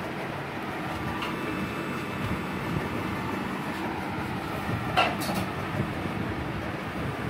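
Homemade fish-shocker inverter running under load with a steady rumbling hum, and one sharp click about five seconds in.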